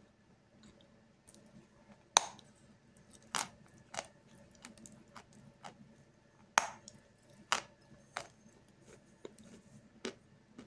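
Teeth biting into and crunching a lump of Snezhok chalk: a series of sharp, dry cracks, about seven in all, the loudest about two seconds in and again about six and a half seconds in.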